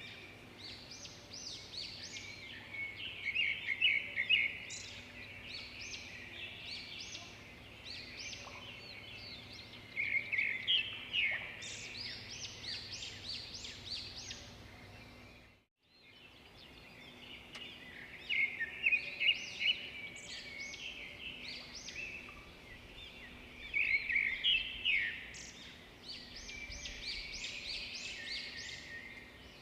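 Birds chirping and singing in quick runs of high notes over a faint steady background hiss. The sound cuts out completely for a moment about halfway through, then resumes.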